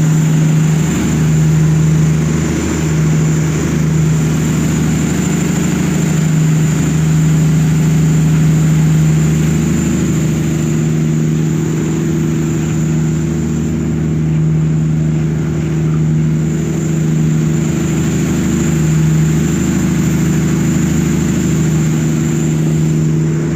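Tugboat's diesel engine running steadily, a loud, even low drone with a thin high whine above it.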